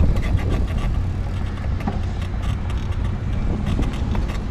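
Bicycle rolling along a paved path, heard through a handlebar-mounted camera: a steady low rumble of wind on the microphone and tyres on the pavement, with frequent small clicks and rattles from the bike.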